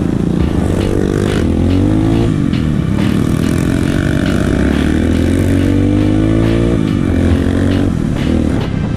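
Dirt bike engine under way on a rough trail, its pitch climbing then dropping back about two seconds in, climbing again for several seconds and falling off near seven seconds. Clatter and knocks from the bike over the ruts run through it.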